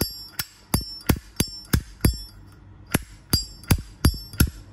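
Zippo lighter's hinged lid flipped open and snapped shut over and over, about a dozen sharp metallic clicks, many with a high ringing clink, with a short pause midway. The speaker calls it a good sound, the mark of a well-working hinge and cam.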